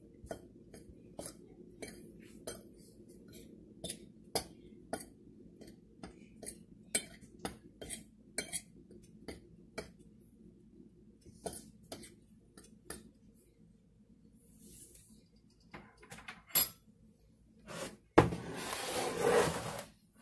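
A metal fork stirring flour and spices on a ceramic plate, its tines clinking lightly and irregularly against the plate, two or three clinks a second. Near the end, a louder noise lasting about two seconds.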